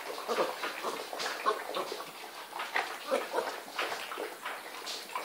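Great Dane puppies lapping and slurping soft food from a shared pan, a quick, irregular run of wet smacks and laps.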